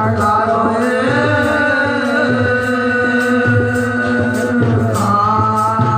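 A devotional Hindi bhajan: a singer holds long sung notes, changing note about five seconds in, over a steady beat of percussion strokes about two a second.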